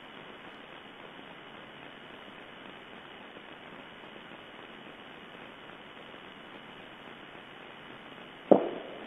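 Steady hiss from the camera's microphone, then a single gunshot near the end, sharp and loud with a short fading echo.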